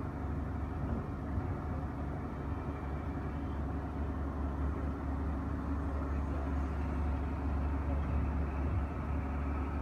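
Steady low rumble of engine and tyre noise, heard from inside a moving vehicle on a paved road.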